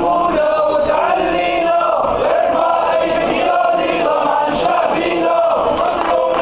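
A crowd of men chanting together in unison, many voices at a steady level.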